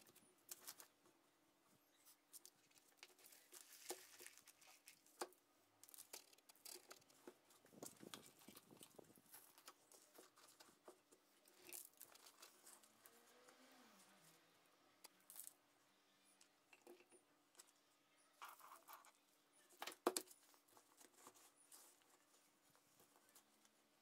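Faint rustling, crumbling and small knocks of hands working potting soil into a terracotta pot, with one sharper knock about twenty seconds in, over a faint steady hum.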